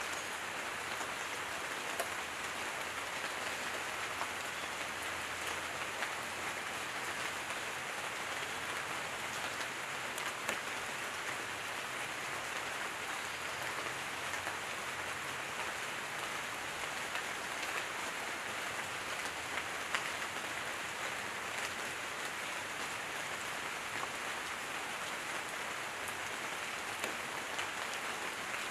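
Light rain falling on leaves and foliage: a steady even hiss, with a few louder single drops now and then.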